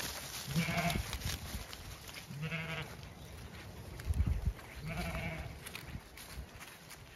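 Zwartbles sheep bleating three times, each call short and wavering, spaced about two seconds apart. A brief low thump comes about four seconds in.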